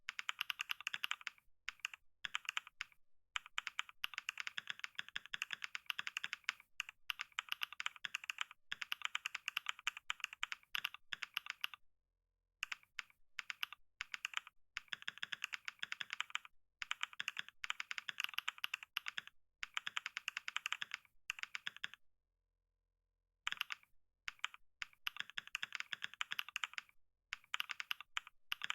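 Fast touch-typing on a computer keyboard: rapid runs of key clicks in bursts, broken by short pauses, with two longer stops about twelve seconds in and about three-quarters of the way through.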